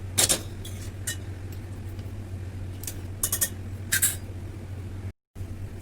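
An open pot of mutton curry cooking on the stove: a steady low hum with a handful of short, sharp clicks and clinks. The sound drops out for a moment near the end.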